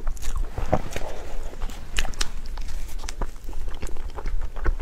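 Close-up eating of a soft dessert: irregular wet chewing and mouth-smacking clicks.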